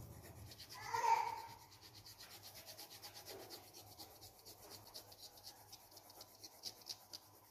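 Coloured pencil scratching rapidly back and forth on paper while shading, about six strokes a second. A short pitched call sounds about a second in, with a fainter one a little after.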